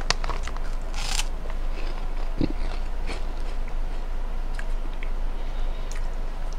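A Herr's cheese curl bitten into with one short crunch about a second in, then faint crackles of chewing.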